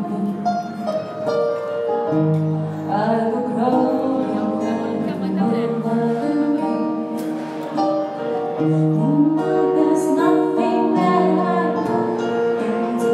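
Live band music: a woman singing into a microphone over electric keyboard and guitar accompaniment, heard through a PA system, with long held notes.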